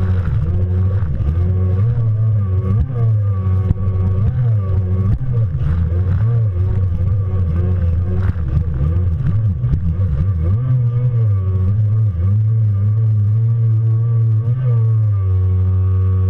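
Two-stroke engine of a stand-up Kawasaki Jet Ski running hard, its pitch rising and falling with the throttle through turns, over rushing water spray.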